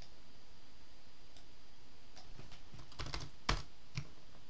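Keystrokes on a computer keyboard: a few scattered taps at first, then a quick run of key presses about three seconds in, one of them louder.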